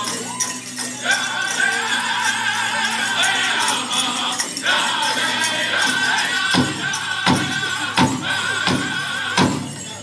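Powwow drum group singing a chicken dance song in high voices over a big drum. From about six and a half seconds in, five louder drum strokes land about 0.7 s apart.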